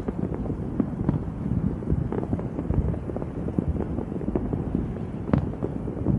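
Fireworks and firecrackers popping and crackling in rapid, irregular succession over low wind rumble on the microphone, with one sharper crack about five seconds in.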